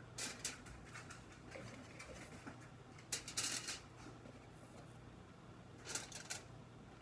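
Hands working at a kitchen counter, making short bursts of rustling and light clicking in several separate clusters, the loudest about three seconds in.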